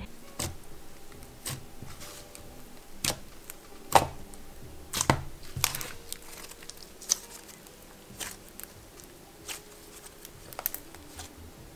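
Thick jelly slime being squished, poked and stretched by hand, making irregular wet clicks and pops. The loudest pops come about four and five seconds in.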